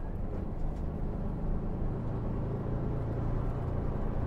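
A bus engine running steadily under way, with a constant low hum and road noise heard from inside the passenger cabin.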